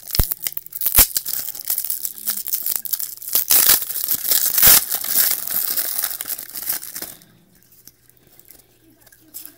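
A trading-card pack's wrapper being torn open and crinkled in the hands, a dense crackling with a couple of sharp clicks near the start, stopping about seven seconds in.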